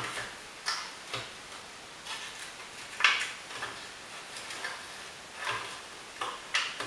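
Irregular clicks and short scrapes of a utensil against the container and bowl as heated beef stew is emptied into a bowl, about a dozen sharp knocks spaced unevenly.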